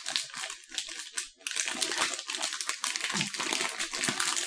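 Snack packet crinkling and rustling as it is handled and worked open by hand, in dense, irregular crackles with a short pause about a second in.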